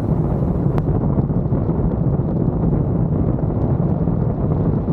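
Wind rushing over the microphone of a camera mounted on the outside of a moving vehicle, a steady low rumble mixed with road noise from the drive. A single faint click just under a second in.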